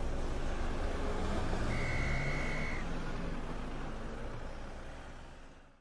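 Steady road traffic noise, a hum of vehicles, with one steady high tone about a second long near the middle. It fades out near the end.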